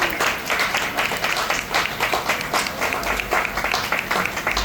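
Crowd applauding: many hands clapping in a dense, continuous patter.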